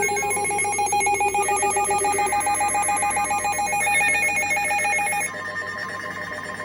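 Electronic emergency alert tones sounding for a severe thunderstorm warning: several tones beep and warble in fast, even patterns over one another. The pattern changes and gets slightly quieter about five seconds in.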